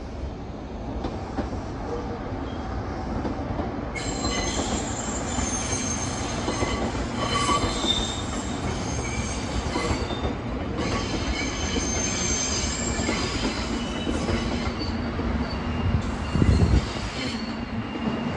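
JR Kyushu 783 series electric train pulling out of the station and running past, its wheels squealing in several high-pitched tones from about four seconds in. There is a louder low thump near the end.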